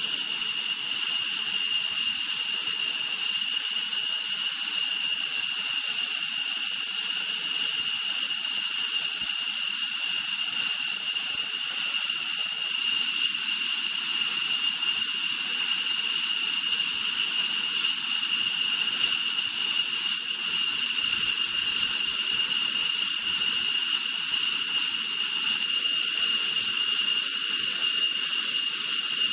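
Jet engines of a parked F-15 idling: a steady high-pitched whine with several tones over a continuous hiss.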